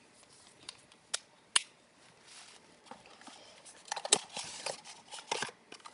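Handling noise from a small plastic toy and its packaging: two sharp clicks about a second in, then a cluster of clicks and crinkling a few seconds in.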